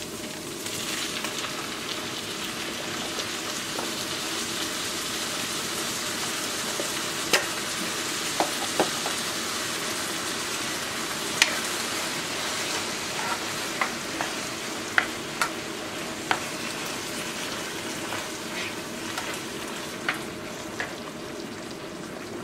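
Browned ground meat sizzling in a frying pan as crushed tomato is poured in, the sizzle swelling about a second in and holding steady. A spatula stirs the sauce, with a dozen or so sharp knocks against the pan.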